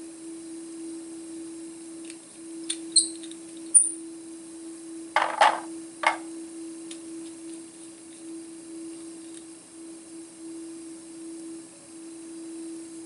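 A steady low hum, with a few light clinks and one brief high ring of glass culture tubes and a metal inoculating loop being handled a few seconds in, then a couple of short, louder scraping handling noises about halfway through.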